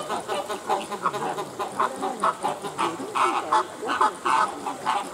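Flock of flamingos honking and calling over one another: many short calls a second, overlapping into a busy, unbroken chorus.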